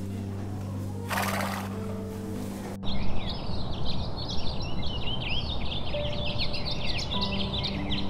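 Low sustained background tones with a breathy burst of noise lasting about a second and a half. After an abrupt cut about three seconds in, a dense chorus of many quick, high bird chirps sounds over a steady outdoor hiss.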